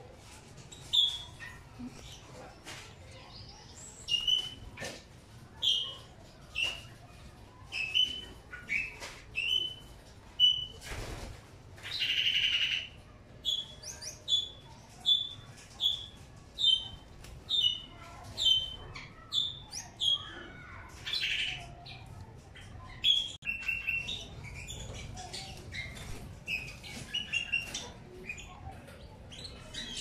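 Small caged finches chirping: a long run of short, similar chirps about two a second, with a longer, harsher call about twelve seconds in and another near twenty-one seconds, over light ticks.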